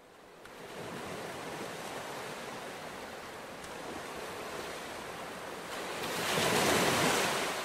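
A rushing noise like surf fades in, holds steady, swells to its loudest about six to seven seconds in, then starts to fade away.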